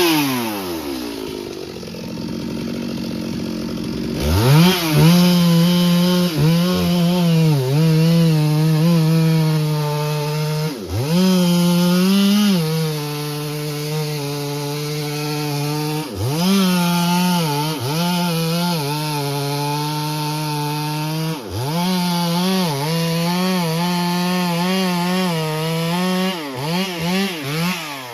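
Two-stroke chainsaw cutting wood. It drops back toward idle at the start, revs up about four seconds in and holds at full throttle. It briefly eases off and revs up again several times, with a few quick throttle blips near the end.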